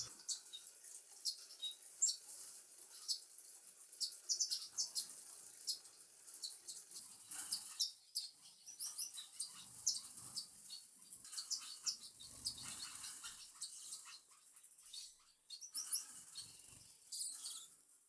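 A flock of Gouldian finches chirping: a steady scatter of many short, high calls, with wings fluttering now and then as the birds hop and fly between branches.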